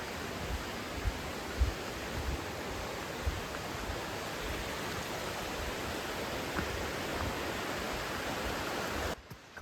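Steady rush of a flowing stream, with a few soft low thumps, the loudest about a second and a half in; the sound cuts off suddenly near the end.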